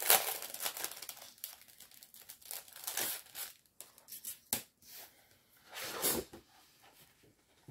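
Packaging rustling and crinkling as a packet holding a metal cutting die is opened, with tearing sounds: a dense run of crackles at first, then separate bursts and a sharp click about four and a half seconds in.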